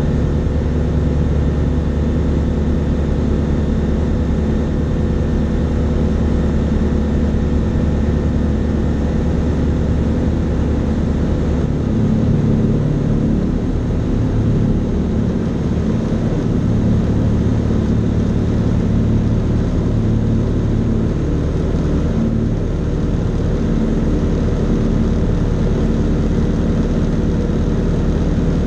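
Fly Synthesis Storch S ultralight's engine and propeller running steadily, heard from inside the cockpit. The engine note shifts slightly about twelve seconds in.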